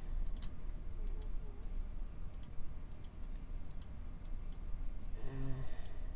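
Scattered sharp clicks of a computer mouse and keyboard, a click or a quick pair every second or so, over a steady low hum.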